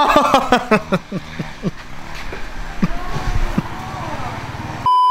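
A man laughing in short repeated bursts, each falling in pitch, then trailing off. Near the end a short, flat, high beep cuts in over everything: an edited-in censor bleep.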